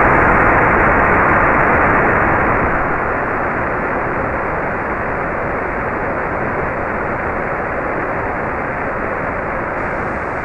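Falcon 1 first-stage Merlin engine in powered ascent heard through an onboard microphone: a steady, dense rushing roar of engine and airflow, dipping slightly in level about two to three seconds in as the rocket climbs toward max Q.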